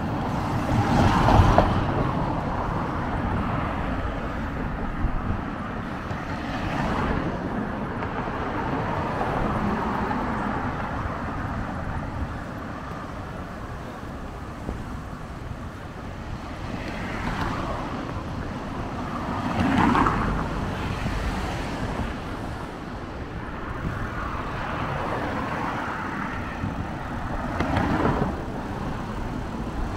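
Road traffic: cars passing one at a time on the coastal road beside the path, each swelling and fading, with the clearest pass about two-thirds of the way through, over a steady rushing background.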